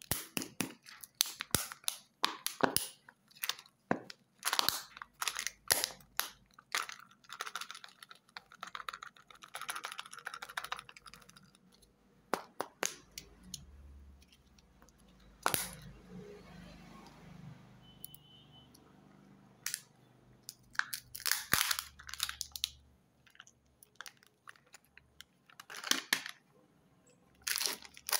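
Foil and plastic wrapping of a Kinder Joy-style candy egg being crinkled and peeled off by hand: bursts of sharp crackles, with a quieter spell of handling in the middle.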